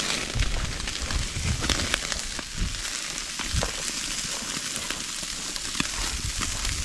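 Mackerel sizzling and crackling on a charcoal barbecue grill: a steady hiss dotted with many small pops. A few dull low thumps sound under it.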